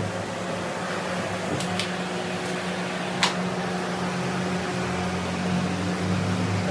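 A steady low mechanical hum that holds one pitch, with a few sharp clicks about two and three seconds in.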